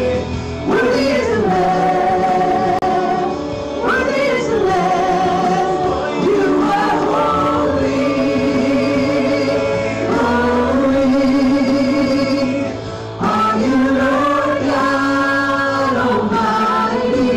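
Live gospel praise singing: a small group of female and male vocalists singing through microphones and a PA, with long held notes and vibrato over a sustained accompaniment.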